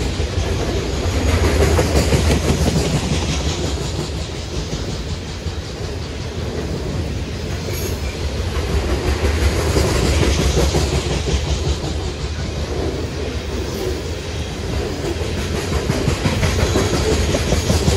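Steel wheels of loaded-line coal hopper cars on a CSX freight train rolling past at speed: a steady rumble with clickety-clack at the rail joints, swelling and easing every few seconds.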